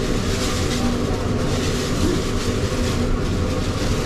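Steady low rumble of a passenger ship's engines, with an even hiss over it.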